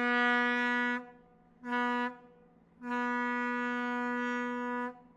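Tugboat horn sounding three blasts, each a steady single note: a long one, a short one, then the longest.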